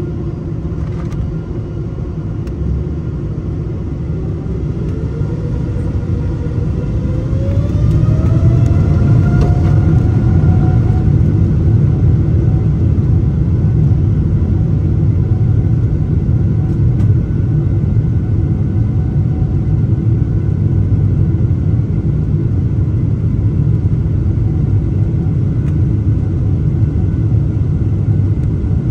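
Boeing 747-8's GEnx jet engines spooling up for takeoff: a rising whine climbs for several seconds and levels off about ten seconds in. As thrust comes up the rumble grows louder, then holds steady for the takeoff roll.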